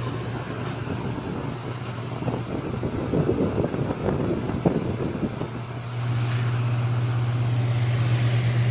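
Vornado 280B air-circulator fan running on high: a low steady motor hum with the rush of air, its motor bearings sounding a tad dry to the owner. Irregular rustling breaks in for a few seconds in the middle, after which the hum is steady and a little louder.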